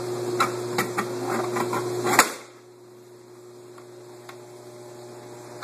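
A sign used as a cover over a hole in a hot tub's wall being handled: a run of light knocks and rattles, then a sharper knock about two seconds in, after which a steady low hum stops and the sound drops to a faint hum.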